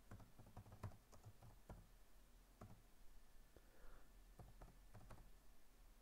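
Faint keystrokes on a computer keyboard: a dozen or so irregular taps as a name is typed.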